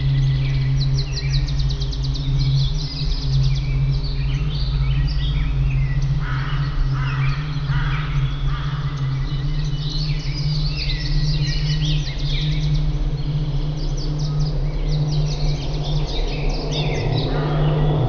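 Songbirds chirping and singing in varied twittering phrases and quick trills, over a steady low drone that is the loudest sound throughout.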